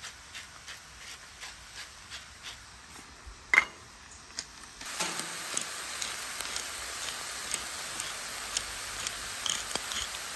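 A hand salt mill being twisted, grinding with a click about three times a second, then one sharp clink about three and a half seconds in. From about five seconds, diced vegetables sizzling steadily in a frying pan with small pops, cutting off sharply near the end.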